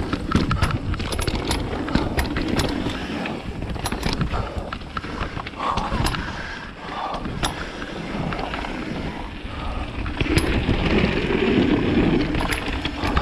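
A mountain bike being ridden hard along a trail: tyres rushing over the ground, and the bike rattling with many sharp clicks and knocks. The noise grows louder for a couple of seconds near the end.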